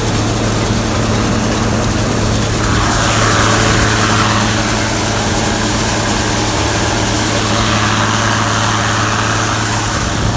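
Gleaner combine harvester running at a steady speed with a constant engine hum. An extra hiss of machinery joins in about three seconds in and fades near the end.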